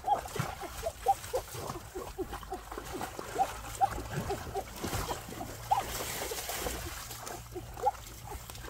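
Hands splashing and churning water in a shallow, rocky stream: a busy run of splashes and short bubbly plops, the sharpest splashes coming about a second in, a little after halfway and near the end.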